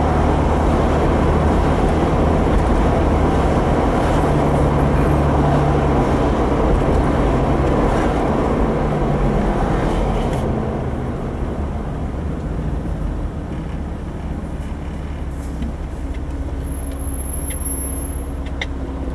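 Jeep driving, heard from inside the cabin: a steady low engine drone under a dense rush of road and wind noise. The rush drops off noticeably about ten seconds in.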